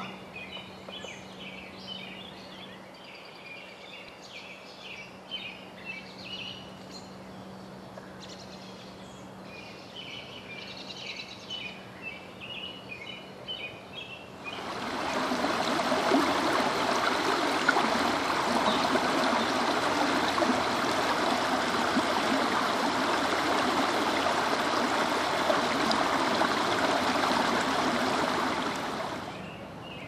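Birds chirping faintly in short repeated bursts, then about halfway through a sudden switch to the loud, steady rush of flowing stream water, which cuts off just before the end.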